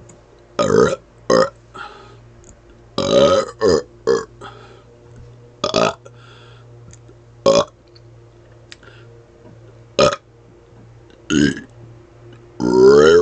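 A man burping over and over on purpose: about nine short burps with gaps of one to two and a half seconds, some in quick pairs, and a longer one near the end.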